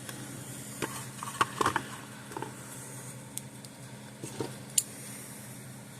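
Light scattered clicks and ticks of a diode and its wire leads being handled and fitted into a circuit board, about eight in all, over a steady low hum.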